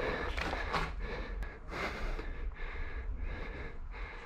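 A person breathing hard and fast close to the microphone, short noisy breaths about twice a second.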